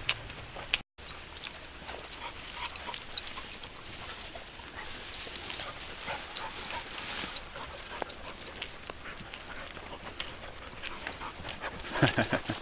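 A pack of dogs panting and moving along a dirt track and through bracken, with scattered crackles of paws and feet on grit and twigs; a dog gives a louder, brief vocal sound near the end.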